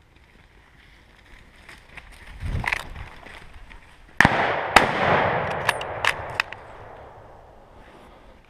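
Hunting rifle shots at a running wild boar: a first shot about four seconds in, echoing through the woods, and a second, louder one about half a second later. A few sharper, fainter cracks follow while the echo dies away.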